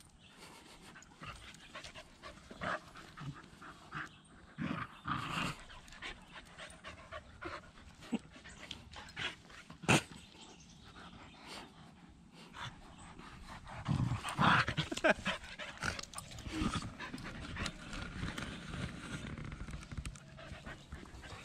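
Two dogs play-wrestling on grass: panting and scuffling in irregular short bursts, busiest about fourteen to fifteen seconds in, with one sharp click about ten seconds in.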